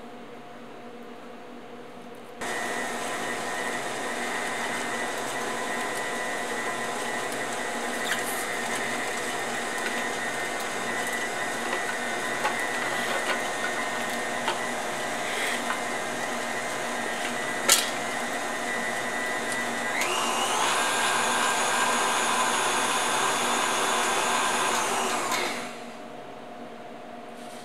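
Electric stand mixer with a meat grinder attachment running while grinding raw meat: a steady motor whine that starts suddenly, shifts to a higher, slightly louder tone about twenty seconds in, and cuts off a few seconds later. A few clicks, one sharp, sound over it.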